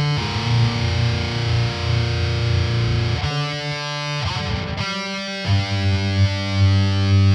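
Heavily distorted electric guitar playing a metal riff: a low note rings underneath while higher notes are hammered on over it, with the notes changing a few times.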